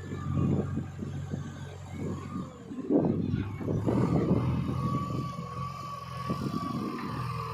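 Diesel engine of a JCB backhoe loader working while loading mud, with a stretch of irregular rough noise loudest about three seconds in, then a steady high whine from about five seconds in.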